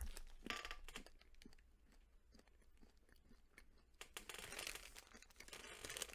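Faint crunching of a mint candy cane Hershey's Kiss with crispy candy cane bits being chewed close to the microphone, mostly in the first second or so. About four seconds in, a candy wrapper crinkles briefly.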